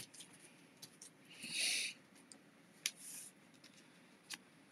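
Cardstock handled on a desk: a short papery rustle, a second fainter one, and a couple of light taps as a stamped panel is laid onto a card base.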